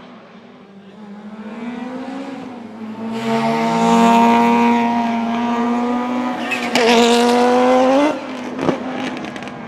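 Rally car engine at full throttle, building as the car approaches and loudest from about three seconds in. Near seven seconds the engine note surges sharply higher, then cuts off abruptly about a second later, followed by a sharp thump.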